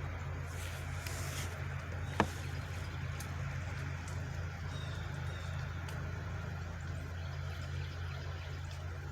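Vehicle engine idling with a steady low hum, and one sharp bang about two seconds in.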